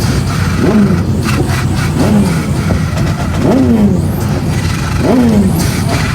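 BMW M6's turbocharged engine revved in four quick throttle blips about every one and a half seconds, each rising sharply and falling back toward idle, with turbo flutter as the throttle snaps shut.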